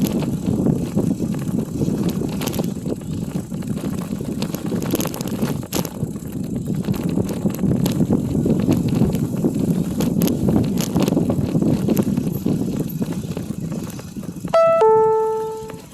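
Bicycle rolling along an unpaved forest road: steady tyre and ride noise with scattered rattles and clicks. Near the end a phone fitness app plays a loud chime, a higher note falling to a lower one; this is the cue before its spoken distance announcement.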